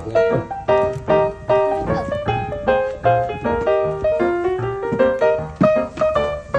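Background piano music: a melody of struck notes, several a second, over low bass notes.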